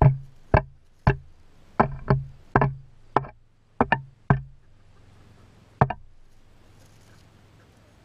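Chickens' beaks pecking at the camera and its legs: a run of about a dozen sharp, irregular knocks, some in quick pairs, which stop about six seconds in.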